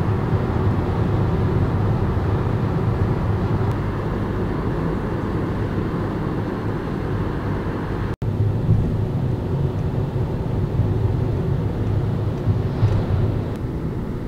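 Steady road and engine noise inside a car's cabin at highway speed. It cuts out for an instant about eight seconds in.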